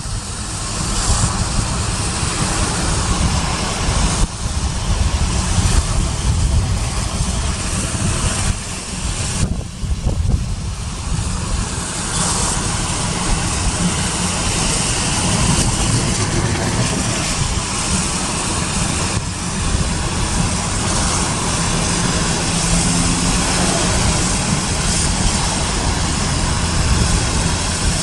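Loud, steady rush of wind with a heavy low rumble, easing briefly about ten seconds in.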